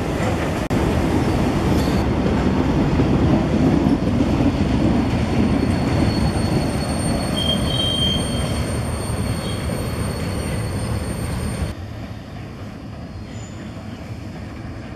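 Freight train cars rolling past, a dense steady rumble of wheels on rail with a thin, high, steady wheel squeal held from about two seconds in. About three-quarters of the way through the sound drops abruptly to a quieter rumble.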